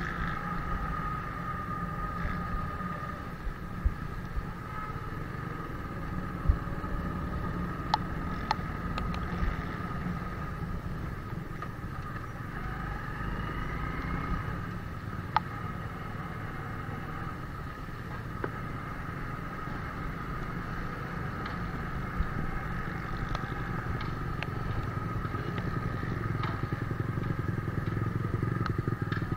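Motorcycle engine running as the bike rides along, with a steady high whine over the rumble and a few sharp knocks scattered through.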